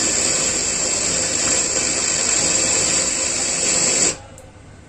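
Untuned FM radio static, a loud steady hiss, played through the amplifier's speaker from the player module in FM mode. It cuts off suddenly about four seconds in as the module leaves FM mode.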